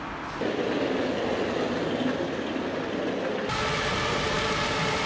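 Steady city street noise, possibly a passing train or traffic, that jumps abruptly in level about half a second in and changes character again, turning brighter and hissier, about three and a half seconds in.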